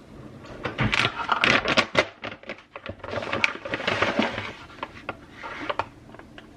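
A spoon scraping and tapping in a bowl and tub, irregular clicks with rubbing in between, as protein powder and yogurt are scooped and stirred into oatmeal.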